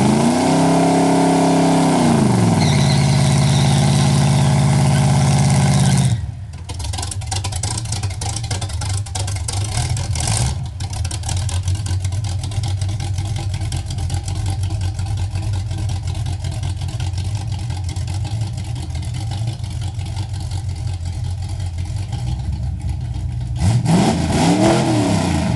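Chevrolet V8 in a 1977 Buick LeSabre revved up and held at high revs for about six seconds, then dropping suddenly to a lower, rougher running as the car moves off slowly. Near the end the engine is blipped once, its pitch rising and falling.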